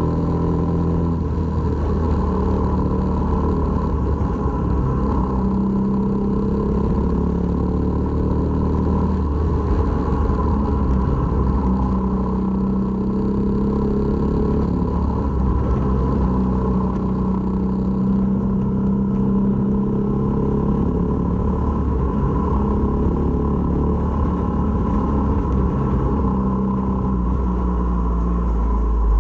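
Honda MSX125's single-cylinder engine running under way, its pitch shifting up and down every few seconds with throttle, over a heavy low wind rumble on the microphone.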